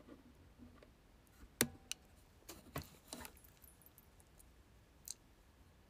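Handling noise of a phone held close to the microphone: a handful of sharp clicks and taps, the loudest about a second and a half in, one more near the end.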